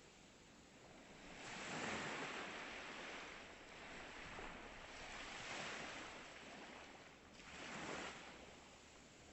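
Ocean waves breaking and washing up on the shore, rising and falling in three swells of surf. The loudest comes about two seconds in and another near the end.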